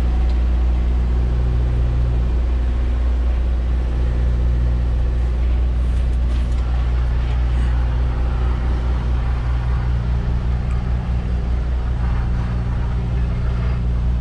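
Semi-truck diesel engine running at low revs as the tractor-trailer is reversed slowly into a loading dock. The note shifts a little twice.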